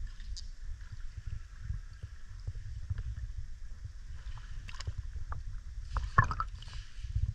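Water lapping and sloshing at the surface close to the microphone: a steady low rumble with scattered small splashes and clicks, and a louder splash about six seconds in.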